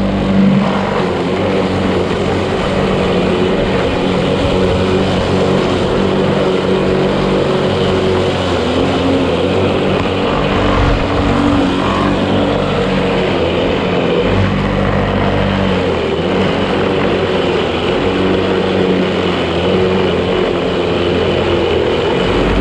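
Outils Wolf lawn mower running while cutting tall grass, a steady engine note whose pitch shifts slightly now and then as it works through the grass.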